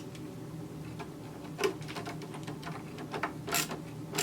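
A few scattered small clicks and scrapes of a screwdriver and metal parts as the replacement upper knife is seated and its screw tightened on a Brother 1034D serger, the sharpest click about three and a half seconds in.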